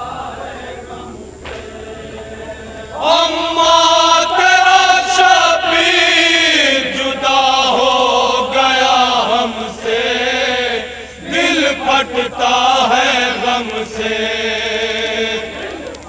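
Men's voices chanting a noha, a Shia mourning lament, amplified through a microphone; the chant comes in loud about three seconds in, with long held, wavering notes and a short break near the middle.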